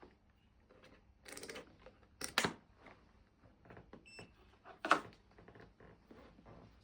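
Scattered clicks and rustles of hands working on an electric bike's wiring and connectors, the loudest click about five seconds in, with a short high beep about four seconds in.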